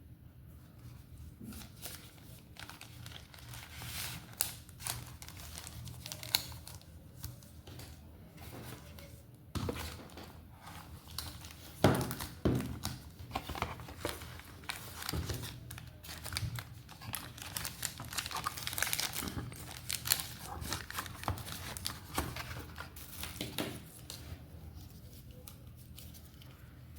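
Packaging being handled and opened: plastic and paper crinkling and tearing, with irregular clicks and knocks, busiest in the middle of the stretch.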